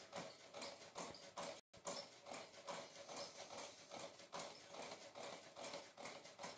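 Faint crackling of hot oil in a karahi as thekua deep-fry: a run of small pops, several a second. The sound cuts out briefly just under two seconds in.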